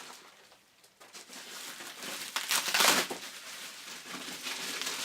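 Packaging being handled and pulled at during an unboxing: crinkling, rustling noise, loudest in a burst about two and a half to three seconds in.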